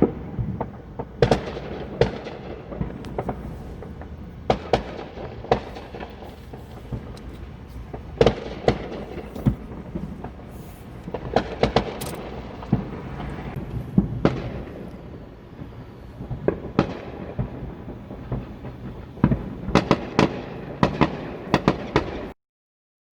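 Fireworks exploding: a string of sharp bangs at irregular intervals over a continuous low rumble, with quick clusters of bangs in the middle and near the end. The sound cuts off abruptly just before the end.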